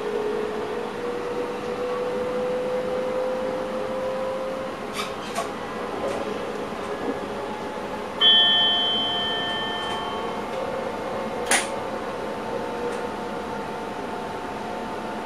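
Electric train cab running: a steady hum with a motor whine that slowly rises in pitch over the first few seconds, and a few light clicks. About eight seconds in, a loud bell-like two-tone chime from the cab's equipment sounds once and fades over a second or two. A sharp click follows a few seconds later.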